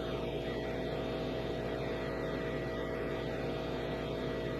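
Steady mechanical hum of running machinery, an even drone that holds level throughout.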